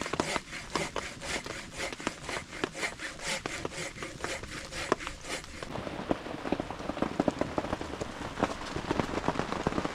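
Rain on a canvas tent: a dense patter of drops. The first half holds sharper, crackly taps; from about halfway on it turns to a fuller, softer patter.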